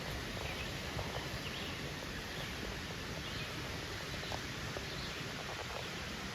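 Steady outdoor background hiss with faint rustling and a few small ticks, and some faint, short, high chirps now and then.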